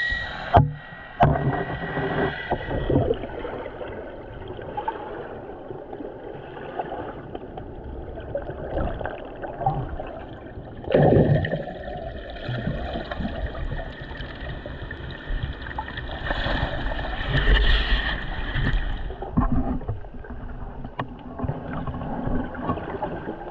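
Water sloshing and gurgling close to the microphone. There are a few sharp knocks in the first second or so and a sudden louder splash about eleven seconds in.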